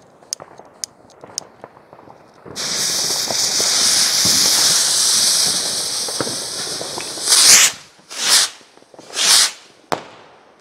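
Three Weco Star Rockets fired together. Small clicks and crackles of the burning fuses come first. About two and a half seconds in, a loud steady hiss of the rocket motors lifting off begins and lasts about four seconds; then three bursts about a second apart as the rocket heads break into stars.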